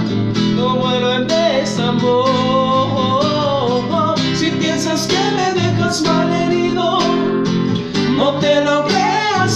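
Acoustic guitar strummed steadily under two men singing a slow romantic ballad in Spanish.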